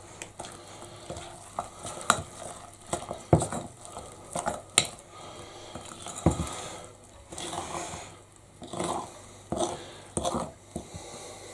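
A fork stirring thick banana bread batter in a glass mixing bowl, with irregular clicks and scrapes of the fork against the glass.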